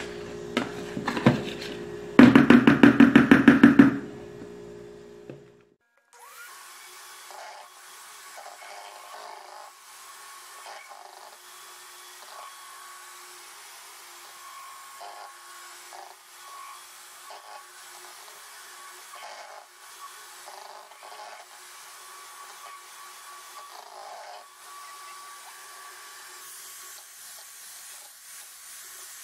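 Mondial electric hand mixer running at a steady speed, its beaters whipping instant coffee, sugar and water into a stiff cream in a plastic bowl. The beaters rattle fast against the bowl about two seconds in; after a short break near six seconds the motor goes on quieter and steady.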